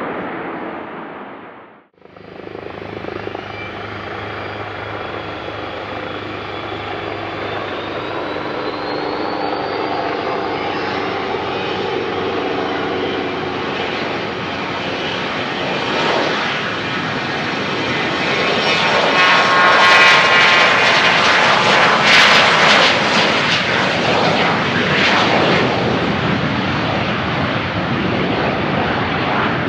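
Business jet's turbofan engines, loud, with a whine that rises in pitch over several seconds and a rush that builds to its loudest about two-thirds of the way through. The sound drops out briefly about two seconds in.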